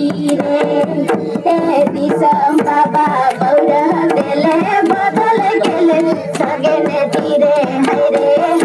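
Folk dance music: voices singing a wavering melody over a slung barrel drum played by hand in a steady, quick beat.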